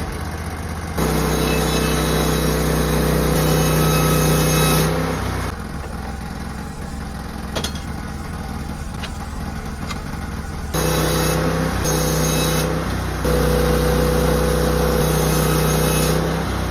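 Portable sawmill engine running steadily at high speed while cutting a cedar log, dropping to a lower, quieter run for a few seconds in the middle before picking up again. It cuts off suddenly near the end.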